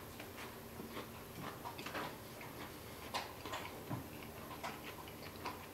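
Faint chewing of a meatball sandwich on toasted bread: small, irregular mouth clicks and smacks over a low steady hum.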